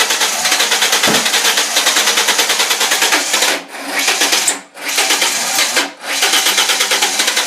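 A 2000 Ford Mustang's 3.8 V6 being cranked by the starter without catching: a fast, even chugging that breaks off briefly twice and resumes. This is a crank-no-start, which the owner links to blocked catalytic converters.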